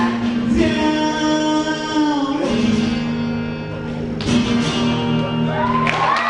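Solo male voice singing with a strummed acoustic guitar at the close of a song. Held sung and guitar notes ring over chords struck about four seconds in and again near the end.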